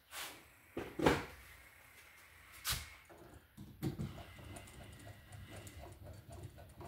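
A few sharp clicks and knocks of tools being handled, then, from about four seconds in, a run of small quick ticks as a screwdriver tightens the ground wire under the green ground screw of a wall switch.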